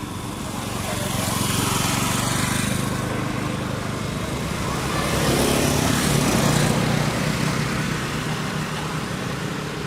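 Motor vehicles passing close by, one after the other: engine hum and tyre hiss swell and fade twice.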